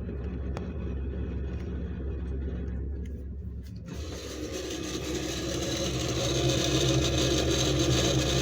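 Refrigerator running with a steady low hum. About four seconds in, a louder, rough whirring noise comes in and grows, from the fridge whose fan is broken.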